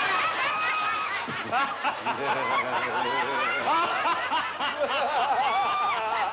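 A group of people laughing at a mocking joke, several voices overlapping in continuous laughter.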